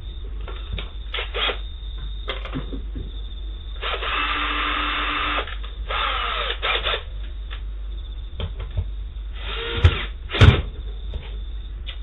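Power drill running in short bursts, driving screws to fasten a car door speaker to its mount. The first run is steady and lasts about a second and a half; a shorter run follows with its pitch changing. Two sharp knocks come near the end, the second the loudest.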